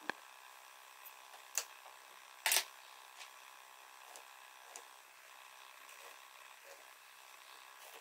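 Quiet handling sounds of wood pieces and a pencil: a sharp click at the start, a short scrape about two and a half seconds in, and a few light ticks over a faint steady hum.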